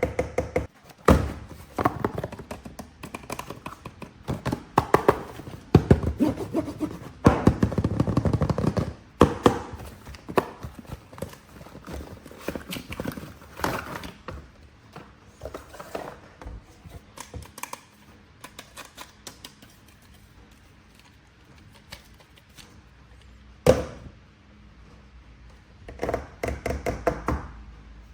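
Hands handling toy packaging and plastic action figures: rustling with many clicks and knocks, busiest in the first half, then one sharp knock about three-quarters through and a quick run of clicks near the end.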